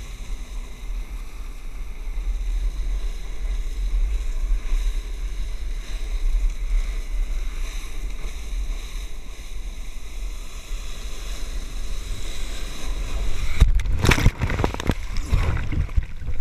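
Flyboard water jets spraying down onto the sea in a steady rush, with wind buffeting the microphone. About fourteen seconds in comes a loud churning splash as the rider plunges into the water.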